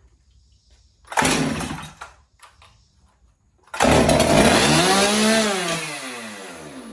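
Two-stroke chainsaw being pull-started. It fires for about a second, then a second later catches and runs, its speed rising and then falling away as it winds down near the end.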